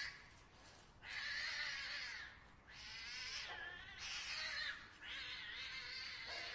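Cats yowling and caterwauling in a fight: a string of long, drawn-out wails, one after another with short breaks.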